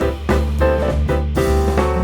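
Background music: an upbeat jazz tune with piano, drums and bass over a steady beat.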